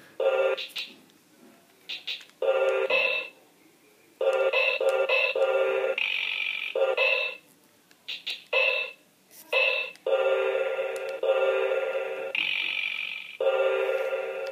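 LeapFrog My Own Leaptop toy laptop playing its drum-kit tune through its small speaker: tinny electronic notes held in short blocks, with clicky beats between them, and a long held block over the last few seconds.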